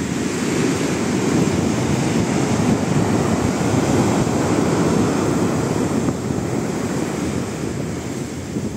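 Pacific Ocean surf breaking on a beach: a steady rush of waves that builds over the first few seconds and eases off after about six seconds.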